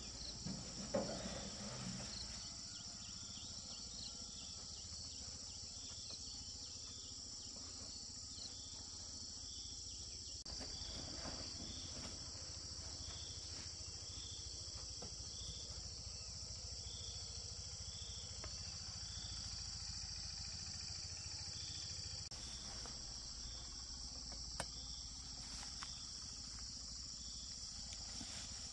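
Insects chirping outdoors: a steady high-pitched trill with a short chirp repeating about once a second. A few light knocks stand out, the clearest about a second in.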